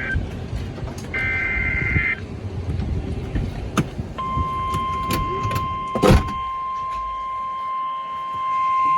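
NOAA Weather Radio Emergency Alert System warning: a short burst of data tones about a second in, then, from about four seconds, the long steady warning alarm beep sounding for a severe thunderstorm warning. Under it there is low noise with scattered clicks and one loud click about six seconds in.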